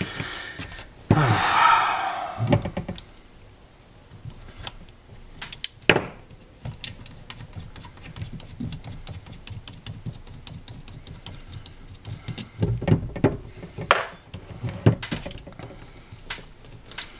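Scattered light clicks and taps of metal lightsaber hilt parts and small tools being handled during disassembly, with a brief louder rasp about a second in.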